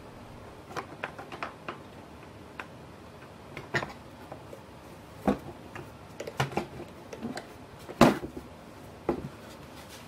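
Irregular knocks and clicks of hard plastic shop-vac parts being handled: the RIDGID WD12450's motor cover being turned and set on its lid. The loudest knock comes about eight seconds in.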